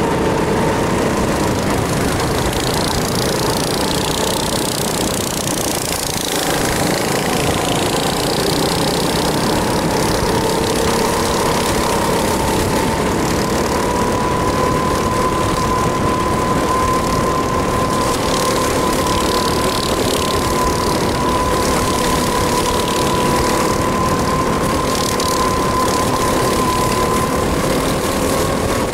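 On-board sound of a 270 cc four-stroke kart engine running at speed. Its pitch drops a little about six seconds in, then climbs again and holds steady as the kart accelerates.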